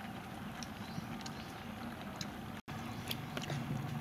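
Steady low background noise with a few faint, short clicks, as of metal spoons against plates while eating. The sound drops out for an instant about two and a half seconds in.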